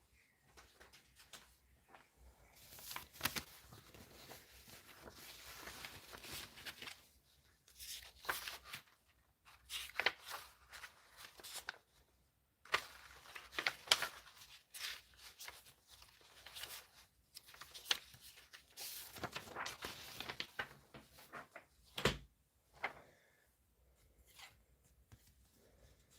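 Rustling handling noises in stretches of a second or two, with scattered light clicks and taps.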